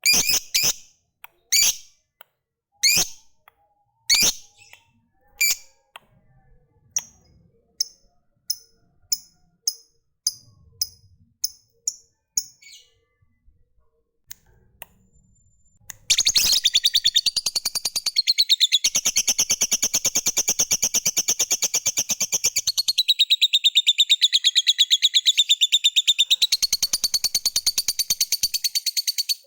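Lovebird calling: a string of sharp single chirps, spaced about a second apart and growing fainter. Then, a little past halfway, a loud, unbroken, very rapid chattering trill of about thirteen seconds: the long 'ngekek' prized in fighter lovebirds.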